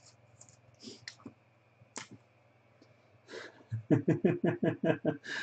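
Light clicks and rustles of a trading card being handled, then a quick run of about a dozen rhythmic scratching strokes, about seven a second, as a marker pen scribbles.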